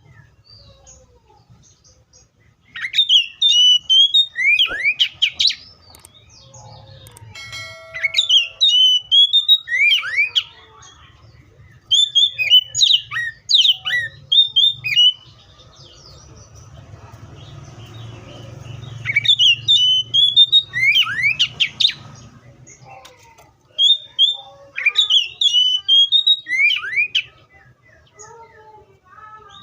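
Oriental magpie-robin singing: five loud phrases of rapid, varied whistled notes that slide up and down, each about three seconds long, with short pauses between them.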